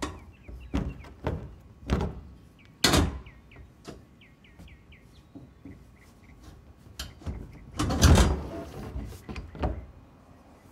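Metal bracket bars being slid out of the top of an IBC tote's steel cage: a series of clanks and knocks, then a louder scraping rattle about eight seconds in as a long bar is drawn out.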